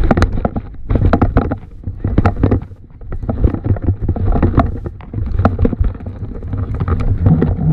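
Wind buffeting the microphone in a steady low rumble, with irregular clicks and knocks as a conventional saltwater fishing reel is cranked and the rod is handled.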